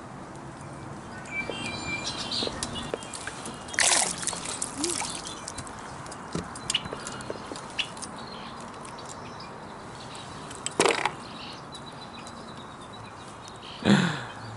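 Water sloshing and splashing against a kayak, with scattered small knocks. Louder splashing bursts come about four seconds in, about eleven seconds in and near the end.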